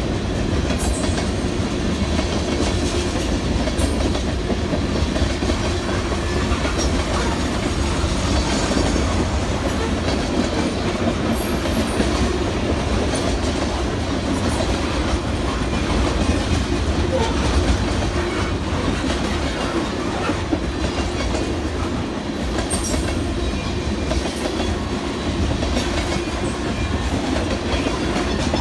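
Freight train of tank cars and covered hopper cars rolling steadily past at close range: continuous wheel-on-rail rumble with scattered clicks from the wheels on the track.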